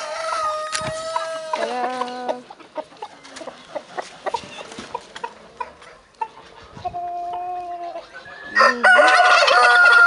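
Roosters crowing several times, the loudest and longest crow near the end, with hens clucking in between.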